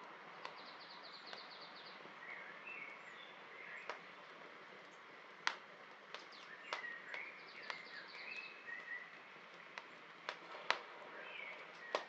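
Wood campfire of thin sticks crackling, with sharp irregular pops over a soft steady hiss; two pops about halfway and near the end are the loudest. Birds chirp in the background, one giving a fast high trill twice.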